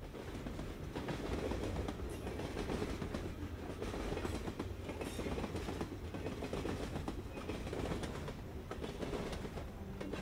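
Train running, a steady low rumble with rattling and clicking.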